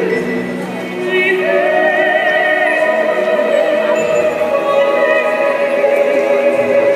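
Operatic classical music playing over the show's sound system. About a second and a half in, a singing voice rises to one long note with vibrato and holds it.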